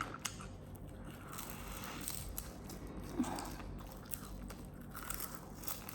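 Close-miked chewing of a person eating, with many small wet mouth clicks.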